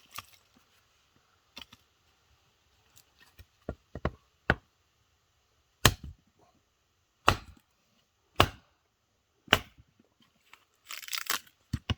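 Hatchet chopping kindling wood: about seven sharp chops spaced roughly a second apart from about four seconds in, with fainter knocks before them and a short crackling rasp near the end.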